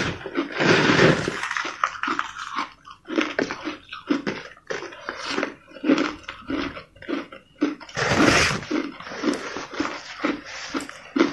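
Crushed ice crunching as it is bitten and chewed, a quick irregular run of crisp crunches. There are two longer, louder bouts of crunching, one about half a second in and one about eight seconds in.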